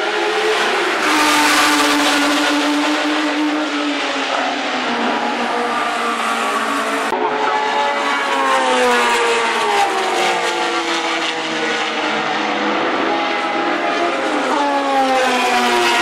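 Ferrari 512 BB LM's 4.9-litre flat-12 racing engine running hard on track, its note rising and falling in pitch several times as it accelerates and changes gear. The sound changes abruptly about seven seconds in.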